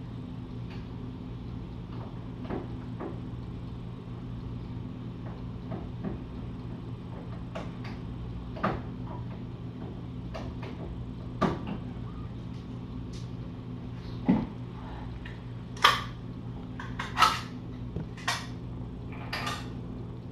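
A steady low electrical hum with scattered knocks and clicks, sparse at first and growing more frequent and louder in the second half, with several sharp knocks close together near the end.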